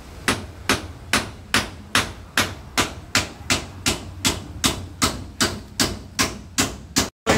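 Hammer driving nails into the wooden roof framing with a steady run of about seventeen blows, roughly two and a half a second.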